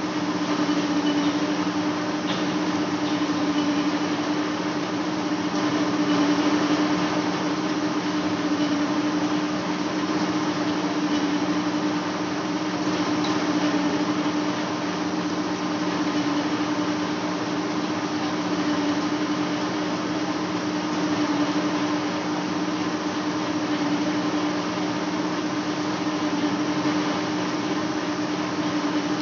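Large lathe running steadily while facing a big metal flange: a constant machine hum with two held low tones over an even hiss, unchanging throughout.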